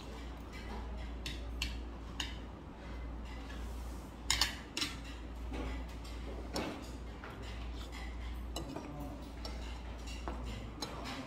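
Eating sounds close to the microphone: chewing, with scattered clicks of a metal spoon and chopsticks against a bowl, the sharpest few about four seconds in. A steady low hum runs underneath.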